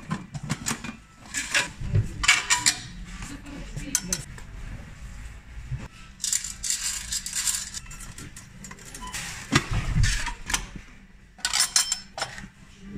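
Coins clinking and jingling in several bursts as they are scooped by hand out of the steel coin trays of mechanical gumball and toy-capsule vending machines.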